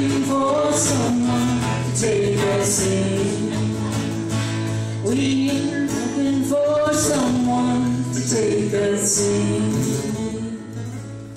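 Live acoustic folk band playing and singing: a sung melody over plucked acoustic guitar and a steady low note, growing quieter in the last second or so.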